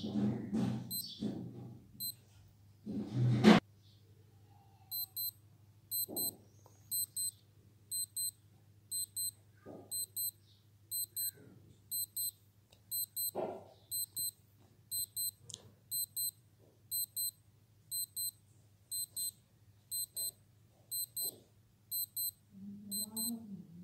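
Skylark digital wristwatch alarm beeping: short, high double beeps repeating steadily, which stop on their own near the end. The alarm sounds for only about 20 seconds, which the owner takes as a fault of the watch. Loud background music plays over the first few seconds and cuts off suddenly.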